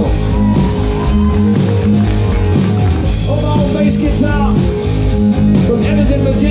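Amplified live band playing a rock number: electric guitars, bass and drums, played steadily and loud, with a few notes bending in pitch.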